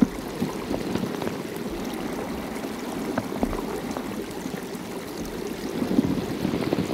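Stream water rushing and churning, with scattered small clicks, as of grit and gravel moving along the bed.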